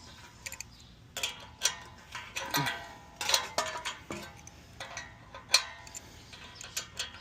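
Irregular metallic clicks and clanks of a motor puller being fitted and worked against an AC condenser fan blade hub to pull the blade off the motor shaft. Several knocks ring briefly, and the loudest comes about five and a half seconds in.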